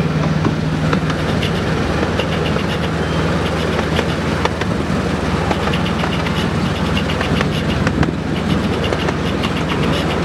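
Miniature railway train running along the track, heard from an open passenger wagon: wheels clicking and rattling over the rails over a steady low drone from the train.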